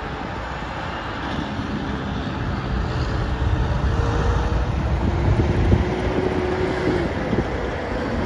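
Heavy diesel semi-trucks and other traffic passing on the highway, engines and tyres growing louder about halfway through as a semi goes by close, with wind buffeting the microphone.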